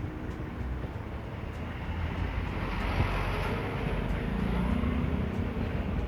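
A vehicle running, a steady low rumble with road noise that slowly grows louder toward the middle.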